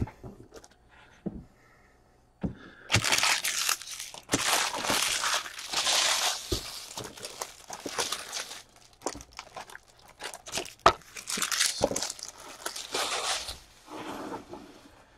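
Plastic wrapping being crinkled and torn in a run of irregular bursts, starting about two and a half seconds in and dying away near the end: trading-card packaging being ripped open.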